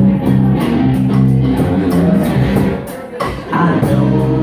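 Live rock band playing an instrumental passage between vocal lines, led by guitars over bass, with a brief drop in level about three seconds in.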